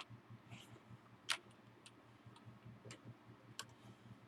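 A few faint, separate clicks and taps, the clearest about a second in, from a keyboard's USB cable and plug being handled.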